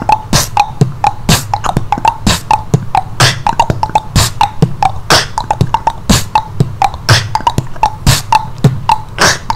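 A man beatboxing a steady beat with his mouth: a sharp snare-like hit about once a second, with kick-like thumps and clicks between.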